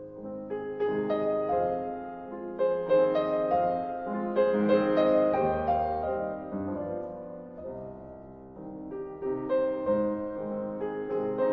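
Background music: soft piano melody with held chords.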